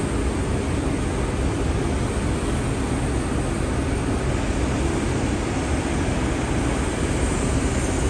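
Steady rush of air in an auto-body paint booth: a gravity-feed spray gun hissing as it lays on a coat of paint, over the booth's ventilation roar.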